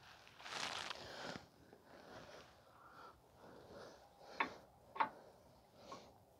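Faint handling noises from fitting a new rear shock absorber and its greased mounting bolt: a brief rustling swish about half a second in, then two sharp clicks about half a second apart near the end.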